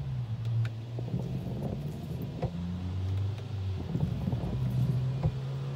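Windshield wiper blades chattering as they skip across the glass: a low juddering buzz that changes pitch with each sweep, with a few light clicks.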